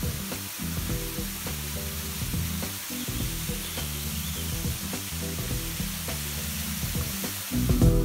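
Steady hiss of a small waterfall running at a thin dry-season flow, with the low notes of background music underneath.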